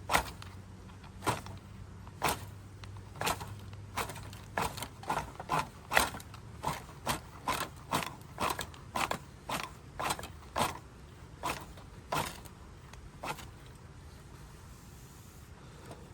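Firewood being worked by hand for a campfire: a run of sharp knocks and cracks, about one to two a second at their quickest, that thin out and stop about two-thirds of the way through.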